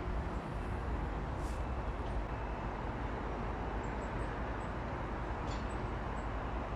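Steady drone of distant road traffic, with a few faint high bird chirps in the second half.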